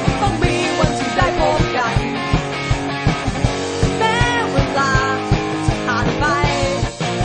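Rock song with sung vocals over electric guitars and a steady drum beat. Near the end the full band drops away to sparser guitar strokes.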